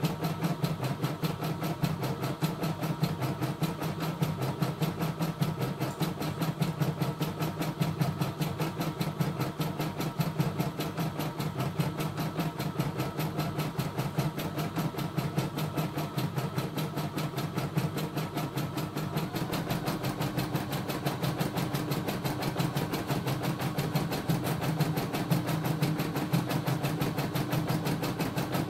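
CNY E960 computerized embroidery machine stitching a design: fast, even needle strokes with the hoop stepping between them. The tone shifts slightly about two-thirds of the way through.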